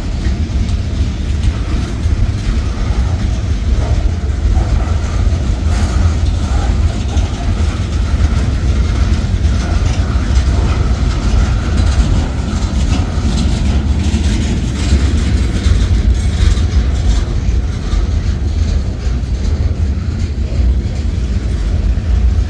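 Freight cars of a Norfolk Southern manifest train rolling past: a steady rumble of steel wheels on the rails, with repeated clacks as the wheels cross rail joints.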